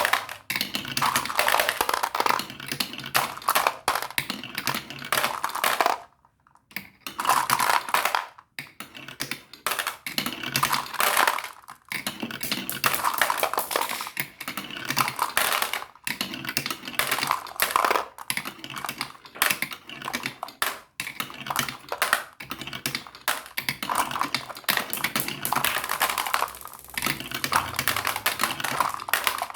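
Marbles rolling and clattering down a marble run: a dense, continuous rattle of small clicks, with brief pauses about six and eight seconds in.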